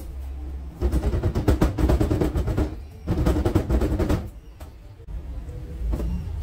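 Intro music with drums and percussion: two loud passages of rapid drum strokes with heavy bass, the first about a second in and the second at about three seconds, then a quieter stretch.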